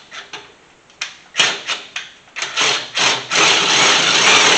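Cordless power tool driving out an alternator mounting bolt: several short bursts, then a continuous run from about three seconds in.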